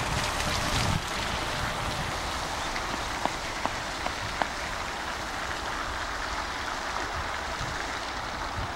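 Steady outdoor hiss, like rain on surfaces. It is a little louder for the first second, and three faint ticks come between about three and four and a half seconds in.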